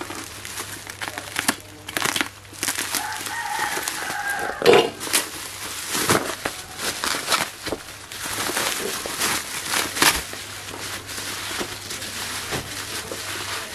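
Plastic packaging crinkling and rustling as a parcel is unwrapped by hand. A rooster crows once in the background about three seconds in.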